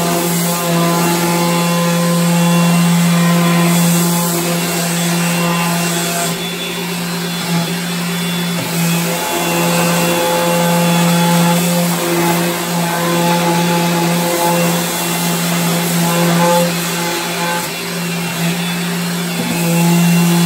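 Electric orbital sander with a dust-extraction vacuum hose running steadily as it sands the dark lacquer finish off a cabinet door's edges down to bare wood, a steady hum that dips briefly a few times as the pad is pressed into the wood.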